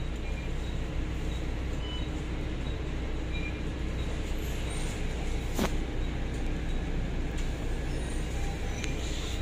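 Cabin noise on the upper deck of a Volvo B9TL double-decker bus under way: the Volvo D9A diesel engine and drivetrain running with a steady low hum over road noise. A single sharp knock comes about five and a half seconds in.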